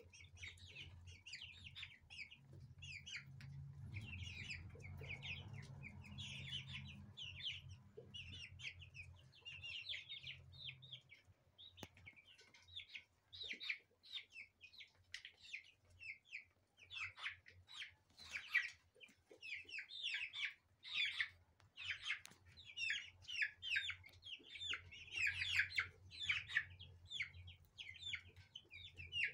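A flock of 30-day-old Brahma chicks peeping and cheeping constantly as they feed, many short overlapping chirps. The chirping gets louder and busier past the midpoint.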